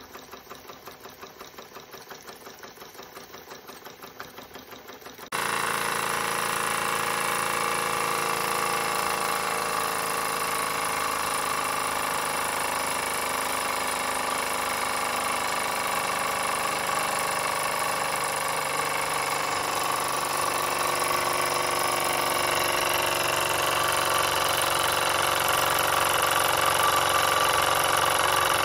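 Jensen 25GR toy steam engine running, first with a soft rhythmic chuffing of its piston. About five seconds in it switches abruptly to a much louder, steady mechanical whir as the engine runs on, driving a small dynamo that lights a bulb.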